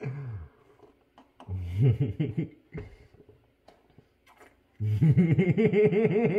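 A man's wordless vocal sounds: a short falling hum at the start, a second pitched vocalising about a second and a half in, and a longer, louder run of voiced sounds rising and falling in pitch near the end, with a few faint clicks between.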